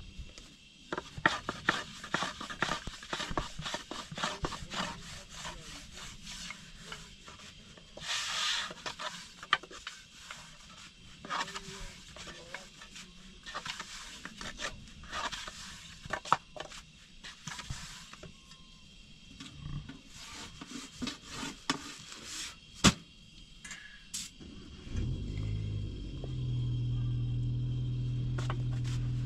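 Long thin wooden rolling pin rolling flatbread dough on a low round wooden board, with many irregular clicks and knocks of wood on wood and scraping as the dough is worked. Near the end a steady low hum sets in.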